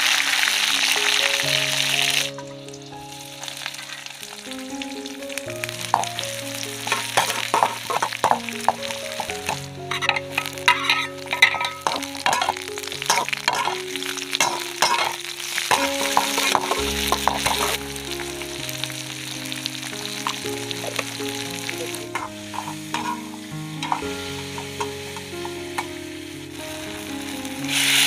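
Hot oil sizzling loudly in a wok for the first two seconds or so, then a spatula clacking and scraping against the wok as the food is stirred and fried. A loud sizzle returns near the end as mushrooms go into the wok. Background music plays throughout.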